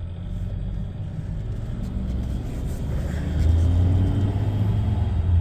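Ford F-550's 6.7-litre Power Stroke turbo-diesel V8 running, heard from inside the cab. Its low rumble grows louder about three seconds in as the truck is driven off.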